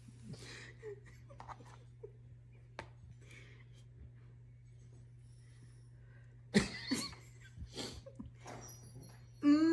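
A woman laughing quietly in short breathy bursts and sniffs over a steady low hum, the laughs growing louder about six and a half to eight seconds in. Near the end a long, wavering, high-pitched cry-laugh begins.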